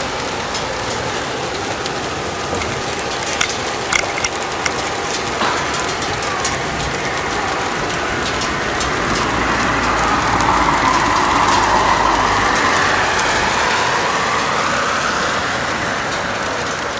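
Heavy rain falling steadily, with sharp drop ticks close by a few seconds in. Midway through, a vehicle's tyres swish past on the wet road, swelling and fading.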